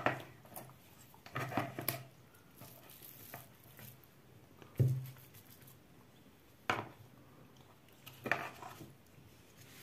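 A spoon scraping and knocking against a plastic mixing bowl while scooping crumbly curd-cheese filling, in about five separate knocks and scrapes a second or two apart.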